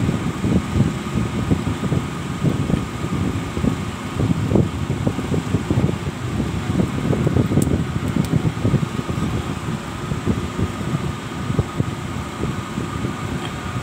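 Steady mechanical whir with an uneven low rumble and a faint high steady tone, and two small sharp clicks about eight seconds in.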